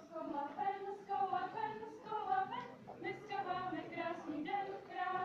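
A group of young women's voices singing a folk song together, with the pitch moving from note to note in a lively melody.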